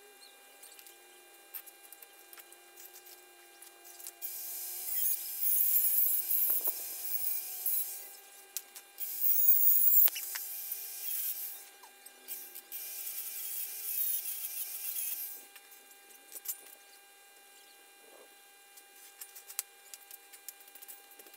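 Handheld angle grinder with a cutting disc cutting through slotted steel angle bracket, as three loud, high-pitched runs of a few seconds each starting about four, nine and thirteen seconds in. Scattered light metal clicks follow.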